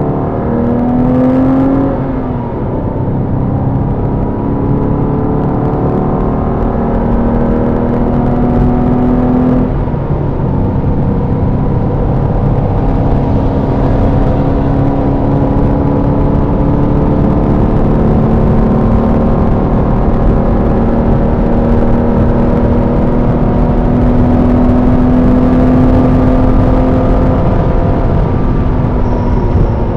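Porsche Boxster's flat-six engine running hard on a race track. Its note climbs slowly through each gear, dropping at upshifts about two seconds and about ten seconds in, with steady road noise underneath.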